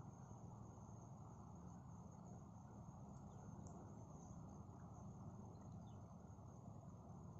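Near silence with a faint, steady, high-pitched insect trill, such as crickets, over quiet low background noise.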